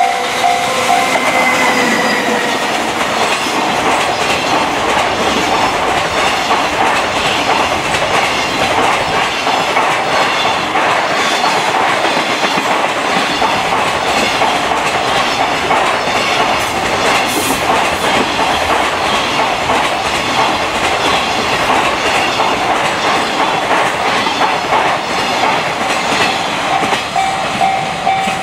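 JR Freight EF210 electric locomotive passing close by with a long container freight train: a falling whine in the first couple of seconds as the locomotive goes by, then the steady rumble and clickety-clack of the container wagons' wheels on the rails as the train runs past. A steady pulsing ring is heard at the start and again near the end.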